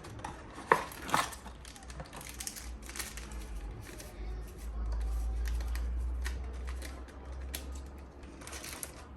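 Kitchen handling sounds: irregular light knocks and clicks of utensils and food being worked, with two sharper knocks about a second in and a low rumble for a couple of seconds in the middle.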